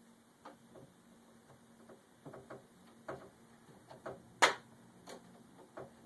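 Handling noise of a Vulcan impulse band being wrapped around a pipe: scattered light clicks and short rustles, with one sharp, louder click about four and a half seconds in.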